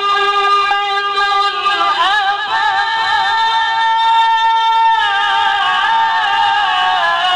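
Male Quran reciter chanting a long melodic phrase in the ornamented tajweed style. His voice winds through quick pitch turns about two seconds in and holds a long high note. About five seconds in it drops back to a lower ornamented line.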